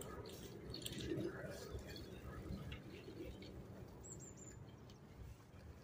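Faint open-air background with a few soft scattered clicks, and a short high bird chirp about four seconds in.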